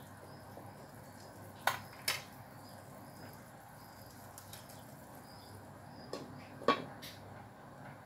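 A ladle clinking twice against a stainless steel soup pot, then, near the end, two knocks as the pot's glass lid is set on, the second the loudest.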